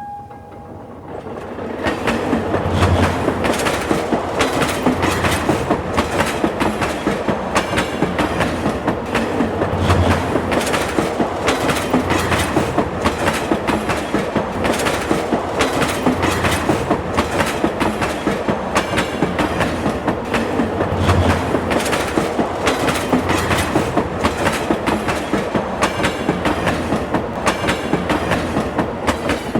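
Subway train running on the rails, its wheels clacking over the track joints in a quick, steady rhythm over a rumble. It builds up over the first couple of seconds and fades near the end.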